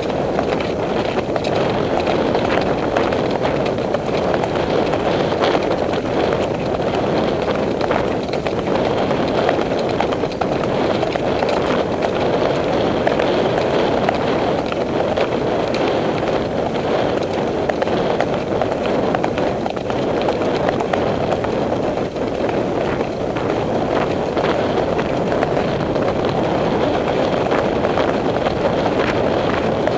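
Steady, muffled rush of wind and movement noise on a camera carried by a rider on horseback, with the horse's hoofbeats on the dirt trail underneath.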